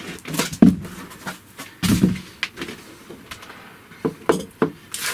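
Handling noise as a CNC 3018 router's metal-and-plastic frame is freed from its white foam packing and set down on a wooden bench: a string of irregular knocks, scrapes and thuds, the sharpest about two-thirds of a second in and a heavier thud about two seconds in.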